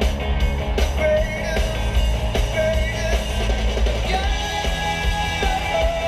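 Rock song with a singer's long held notes over a heavy bass, playing loudly on the car's stereo inside the cabin.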